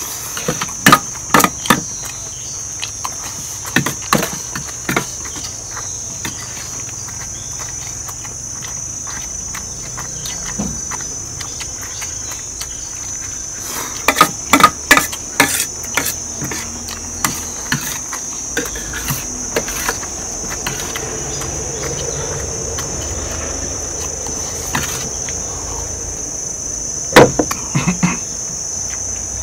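A steady, high-pitched insect chorus trilling without a break, with spoons repeatedly clicking and scraping against plates during eating; the sharp clicks come in clusters and are the loudest sounds.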